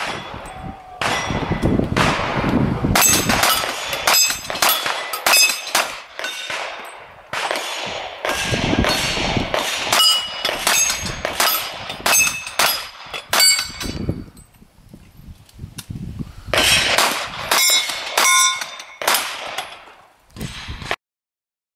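Rapid handgun shots, each hit answered by the ringing clang of a steel target plate, in quick strings with a brief lull about two-thirds through. The sound cuts off abruptly near the end.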